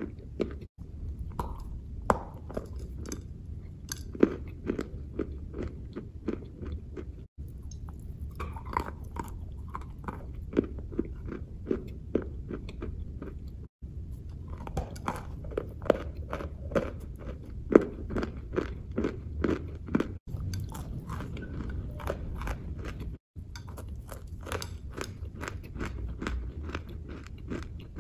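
Close-miked crunching and chewing of a hard white chunk of edible chalk, a dense run of crisp cracks and grinding bites. A few very brief silent gaps break it.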